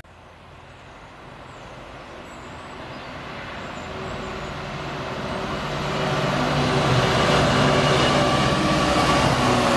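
Class 66 diesel locomotive, with its two-stroke V12 EMD engine, hauling a container freight train as it approaches. It grows steadily louder for about six seconds, with a steady engine hum over rising rumble, then runs loud and steady as it draws alongside.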